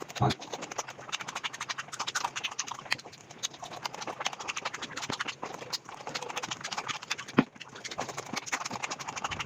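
Mukbang eating sounds sped up to five times normal speed: a dense, rapid stream of chewing, smacking and mouth clicks, with a sharper click just after the start and another about seven and a half seconds in.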